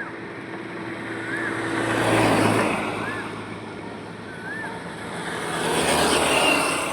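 Highway road traffic: steady tyre and engine noise as two vehicles pass close by, one about two seconds in and another about six seconds in. Faint short chirps repeat about every second and a half underneath.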